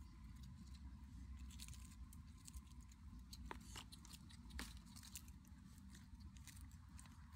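Faint scattered clicks and small crackles, a few sharper ones a little past the middle, from snails roasting in their shells on smouldering embers as they are turned and lifted out with a stick.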